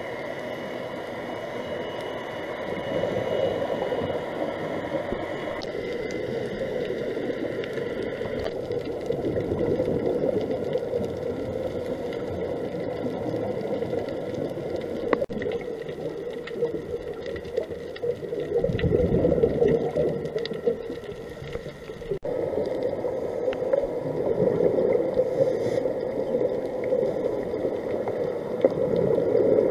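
Underwater sound picked up through a dive camera's housing: a muffled, steady rush of water that swells and eases every several seconds, over a faint steady hum.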